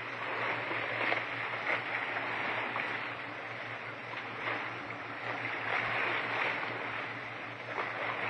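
A steady rushing noise with an even low hum underneath and a few faint ticks.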